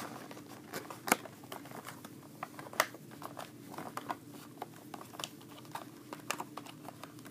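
Irregular small clicks and crinkles of plastic toy packaging handled by hand while the tie holding the figure is worked loose, with two sharper clicks about one and three seconds in.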